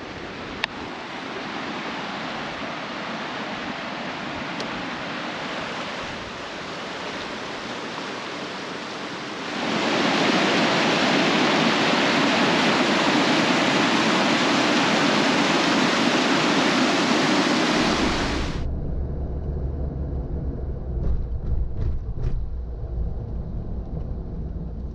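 River water rushing through a dam spillway, much louder from about ten seconds in as whitewater pours over a rock ledge. It cuts off after about eighteen seconds to the low road rumble of a Jeep Gladiator driving.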